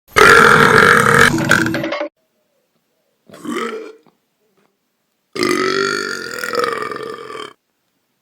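Three human burps in a row, with dead silence between them. A long, loud belch of about two seconds, then a short, quieter one, then another long, loud belch of about two seconds. Each cuts off suddenly.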